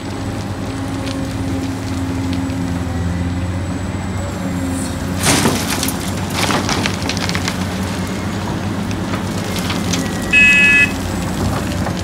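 Large Caterpillar crawler excavator's diesel engine running steadily under load. About five seconds in, its bucket dumps soil and rocks into a dump truck bed with a loud crunching rattle. A short high beep sounds near the end.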